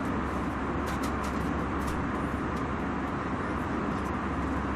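Airliner cabin interior in flight: a steady rush of engine and air noise, with a few clicks about one and two seconds in.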